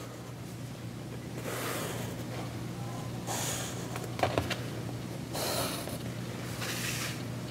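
Pencil scratching on sketchbook paper as it traces around the edges of a cardboard template, in four short strokes, with a couple of light taps about four seconds in, over a steady low hum.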